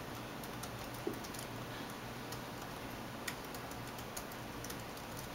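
Light, irregular clicks and ticks over a steady background hiss, two of them a little louder, about a second in and just past three seconds.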